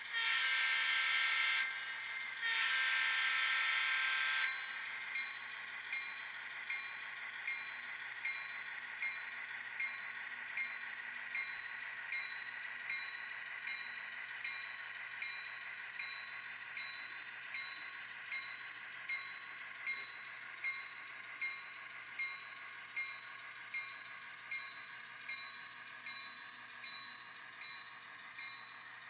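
ESU LokSound decoder's diesel sounds from an Atlas N-scale GP38-2 model locomotive, played through its tiny speaker: two horn blasts, the second longer, then the bell ringing steadily about one and a half times a second over the running engine sound.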